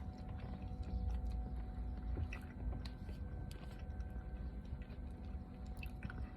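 A person chewing a mouthful of macaroni and cheese, with small wet mouth clicks scattered throughout, over a steady low rumble.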